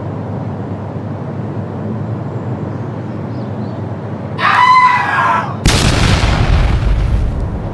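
Steady background hiss, then a rooster crowing for about a second, followed straight after by a sudden loud boom that fades away over about two seconds.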